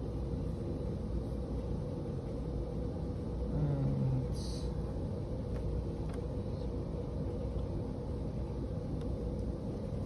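Steady low rumble and hum of background room noise, with a few faint clicks and a short hiss about four seconds in.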